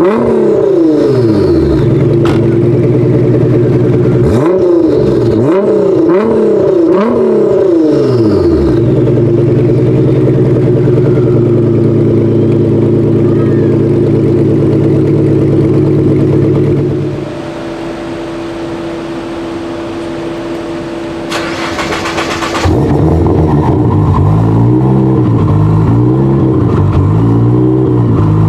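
Nissan GT-R engine revving in a series of quick blips, then held at a steady high note for several seconds before dropping to a quieter, lower steady note. A short burst of hiss comes about two-thirds of the way in, then the revving blips start again.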